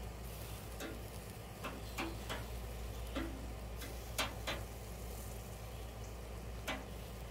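Metal scissor-style grill tongs clicking shut and tapping against the steel grill grate as hamburger patties are picked up and turned: irregular sharp clicks, about nine, over a faint steady background.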